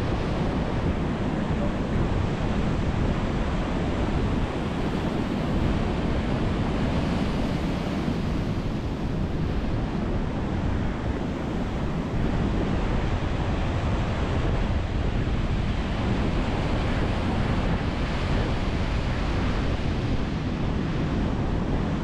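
Ocean surf breaking continuously against concrete tetrapods and a pebble shore: a steady rush of foaming water with a deep rumble underneath.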